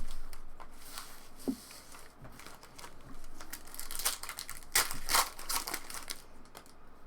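Trading card pack wrappers being torn open and crinkled, a crackly rustle that comes in louder clusters after the halfway point.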